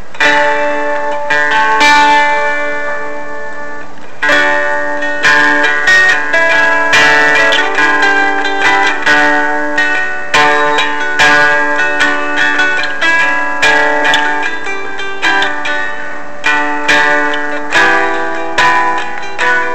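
Handmade fretted dulcimer being strummed, playing a melody of plucked notes over ringing strings. About two seconds in, a chord is left to ring and fade for a couple of seconds before the strumming picks up again.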